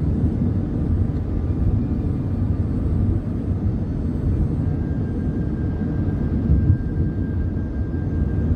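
Steady low road and engine rumble of a moving car, heard inside the cabin. A faint thin steady tone joins about halfway through.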